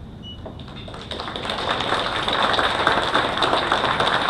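Audience applauding. A few claps start about half a second in, swell over the next second or so, then hold as steady applause.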